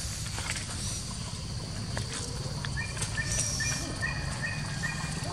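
Outdoor ambience: a steady high insect drone with a low rumble under it and a few light rustling clicks. About halfway through, a bird calls in a run of short, even notes, about two a second.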